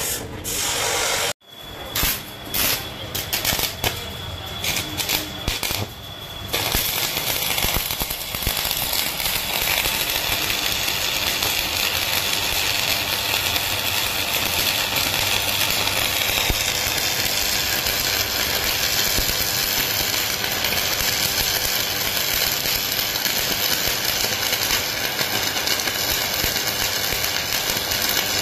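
Electric arc welding on steel plate: the arc is struck in short, broken bursts for the first few seconds, then settles into a continuous, even crackle as the bead is run.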